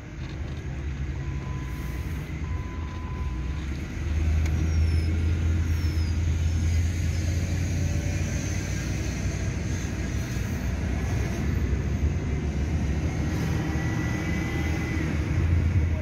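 A car driving, heard from inside the cabin: a steady low rumble of engine and road noise that grows louder about four seconds in.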